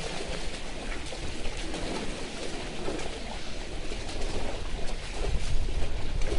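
Outdoor waterhole ambience with an elephant herd drinking: a steady hiss with faint bird calls, and a low rumble that grows louder about five seconds in.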